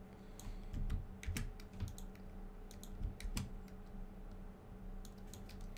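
Typing on a computer keyboard: irregular keystroke clicks, thinning out after about three and a half seconds, over a faint steady hum.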